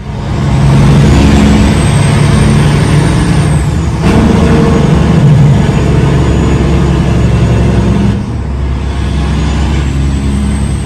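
Semi-truck diesel engine pulling steadily at highway speed, with a steady drone and road noise heard from inside the cab. A faint high whistle rises and fades twice.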